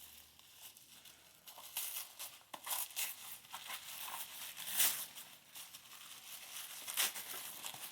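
Gift paper being torn and crumpled as a present is unwrapped, in uneven rustles and rips, with a couple of louder tears.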